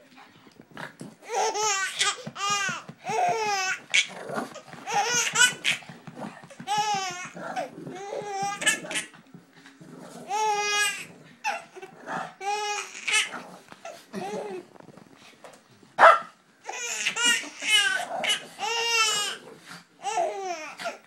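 A baby laughing hysterically in repeated bursts, with dog barks mixed in; the barking is what sets him off laughing.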